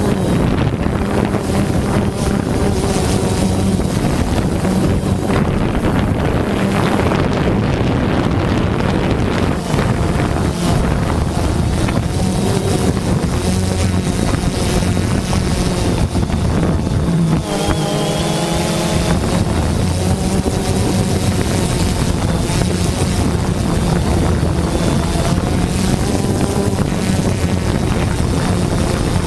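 Quadcopter drone's motors and propellers buzzing steadily, heard from the drone's own onboard camera, with wind rushing over the microphone. About seventeen seconds in, the pitch briefly shifts as the motors change speed.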